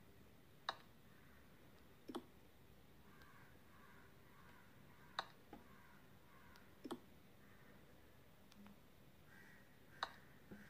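About five short, sharp clicks a second or more apart from the side power button of a Xiaomi 11 Lite NE 5G phone, pressed to switch the screen off and wake it again for face unlock. Otherwise near silence.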